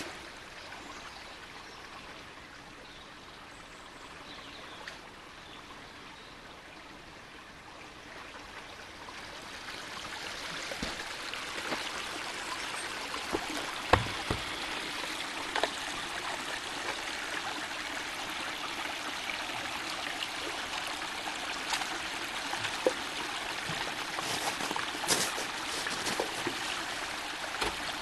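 A shallow meltwater stream trickling and running over the thawing forest floor among snow. It grows louder about ten seconds in, then runs steadily. A few faint knocks are heard.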